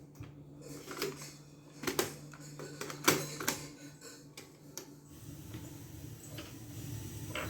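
A Technics M-206 stereo cassette deck being handled, giving about half a dozen sharp mechanical clicks and clunks in the first five seconds as its controls and cassette mechanism are worked, over a faint low hum. The clicks then die away, shortly before playback starts.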